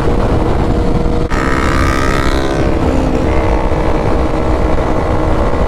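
Suzuki GSX-R1000 inline-four motorcycle engine running steadily at highway speed, heard from the rider's own bike with wind rushing over the microphone. There is a brief drop and break about a second in, after which the engine note carries a brighter, higher edge.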